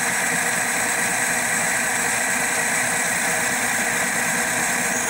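CNC-converted Logan 12-inch metal lathe running steadily as its carbide insert takes a turning cut on a metal pulley blank, throwing off chips.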